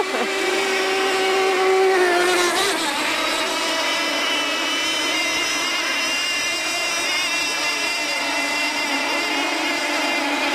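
Several radio-controlled model tunnel-hull race boats running flat out: overlapping high-pitched whines of small engines, wavering in pitch as the boats run and turn. One lower engine tone fades away about three seconds in.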